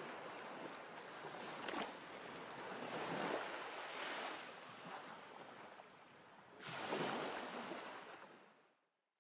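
Waves washing in: rushing swells of surf, one brief and two broader ones. The loudest comes about seven seconds in, and the sound fades away to silence near the end.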